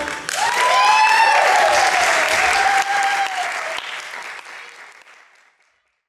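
Theatre audience applauding and cheering as a song ends; the applause fades out about five seconds in.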